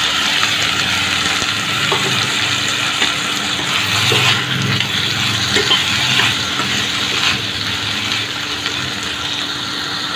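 Sweet corn kernels sizzling in hot oil with fried onions and whole spices in a pan, a dense steady hiss with a few light clicks; the sizzle eases slightly toward the end.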